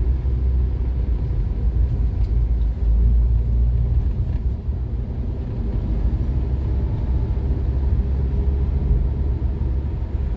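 Steady low rumble of a motor vehicle running, with no distinct events.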